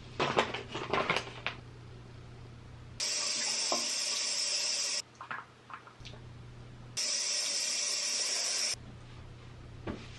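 Bathroom tap running into the sink in two spells of about two seconds each, with small clicks and rattles of things being handled before and between them.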